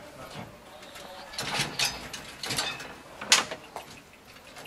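Metal clicks and rattles from a van's barred dog kennel, its door and latch worked to let a dog out, with the loudest click a little after three seconds in.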